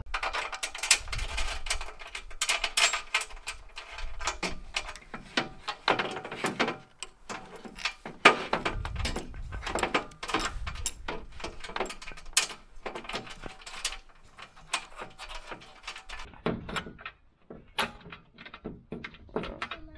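Irregular clicking, tapping and rattling of a hand tool and metal mounting hardware being worked at a solar panel's frame and rail, with a few dull low thumps.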